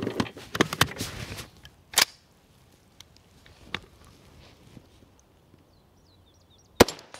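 Metallic clacks and rattles of a 7.62x39 AR-15's action being worked by hand to clear a malfunction with a slab-sided AK magazine, with one sharp clack about two seconds in. Near the end the rifle fires a single shot.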